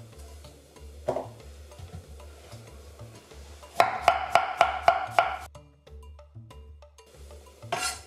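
Kitchen knife chopping cabbage on a cutting board. There is a single knock about a second in, then a quick run of chops, about five a second, lasting a second and a half, and one more knock near the end.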